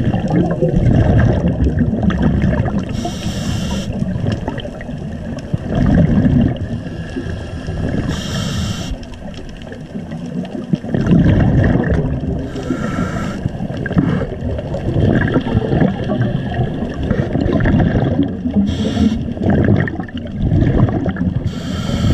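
Scuba regulator breathing heard underwater: exhalations bubble out as a low rumble, broken by about five short hissing inhalations, one every four to five seconds.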